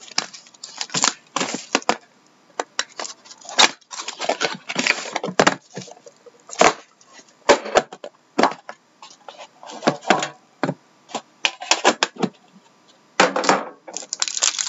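Hands unpacking a 2012-13 Upper Deck The Cup hockey card box: plastic wrap crinkling and tearing, with clicks and scrapes as the cardboard box and the metal card tin are handled and opened. It comes as a string of short rustles and sharp clicks, with longer rustles about a second in, around five seconds in and near the end.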